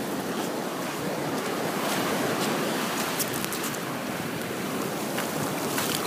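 Surf washing steadily onto a beach, with wind on the microphone and brief crackles now and then.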